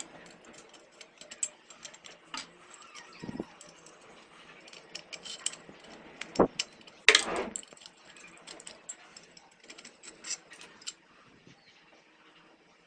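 Metal parts of an electric iron being worked with a screwdriver while its terminal screws are undone: scattered small metallic clicks, taps and scrapes, with two louder knocks a little past halfway.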